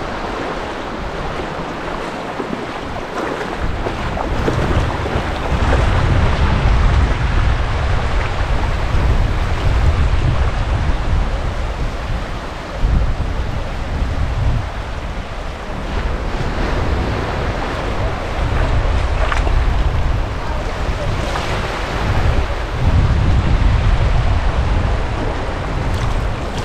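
Surf washing onto a sandy beach, with strong wind buffeting the microphone in gusts, a low rumble that swells and eases every few seconds.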